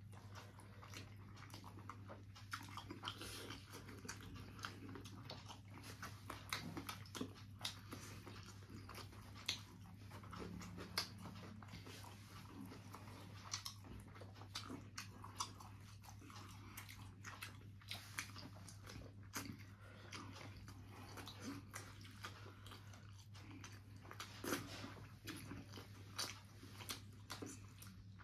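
Close-up eating sounds: wet chewing, lip smacks and small bites, in many short irregular clicks over a steady low hum.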